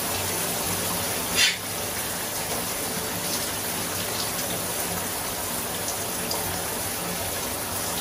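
Shower running: water spraying steadily from the showerhead in a tiled shower stall. One brief high-pitched sound about one and a half seconds in.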